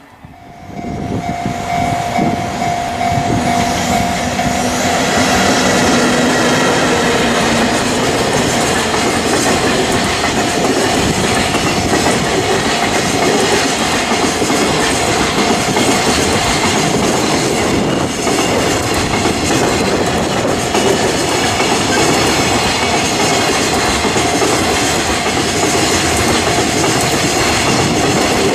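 Real train running past, its wheels clattering over the rail joints, coming in abruptly about half a second in and holding steady, with a thin steady tone over the first few seconds.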